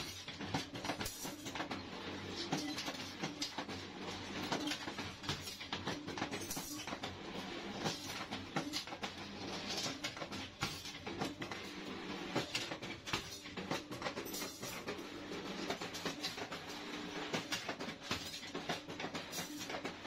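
Steel wire-bending machine running, a steady hum under constant irregular clicking and rattling.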